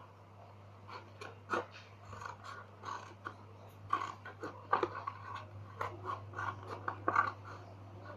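Cardboard milk carton being cut along a drawn line: a run of short, irregular cutting clicks and crunches.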